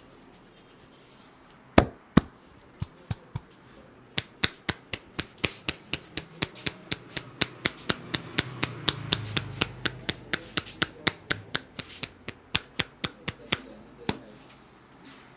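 Percussive hand strokes of an Indian head massage: a barber's hands striking the head in an even run of sharp slaps, about three to four a second. Two louder single strikes come about two seconds in, and the run stops a second before the end.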